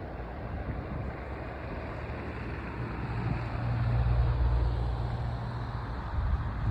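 Wind buffeting the microphone: a low rumble that swells about three and a half seconds in and eases off about five seconds in, over a steady hiss.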